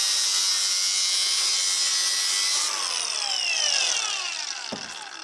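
Milwaukee angle grinder with a cut-off disc grinding into steel in a vise, then let go and spinning down, its whine falling in pitch over about two seconds. A single knock comes near the end.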